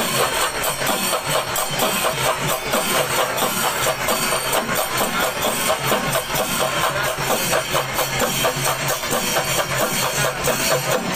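Kerala temple percussion ensemble (chenda melam) playing dense, rapid drumming without a break, over the noise of a large festival crowd.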